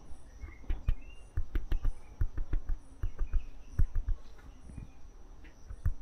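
Scattered short bird chirps and a faint high call repeating about once a second, over frequent low knocks and rustles close to the microphone.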